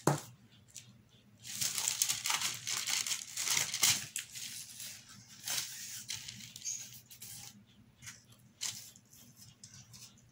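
A sharp knock at the start, then a large painted poster-board cutout being picked up and handled over a paper table covering. It makes a dense spell of crinkling and rustling for a couple of seconds, then scattered shorter rustles.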